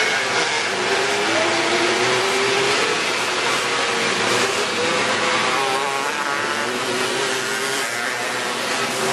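Several race car engines running hard on the track, their pitches overlapping and rising and falling as they pass, over a steady wash of engine noise.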